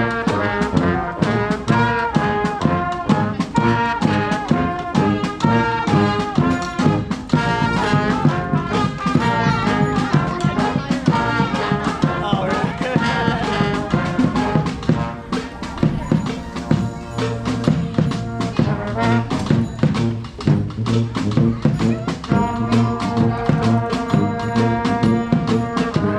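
Street brass band playing live: horns carry a moving tune over a steady drum beat. Near the end the horns hold long, steady notes.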